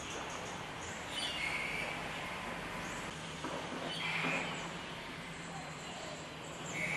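Birds calling, a short chirp roughly every three seconds, over a steady background hum.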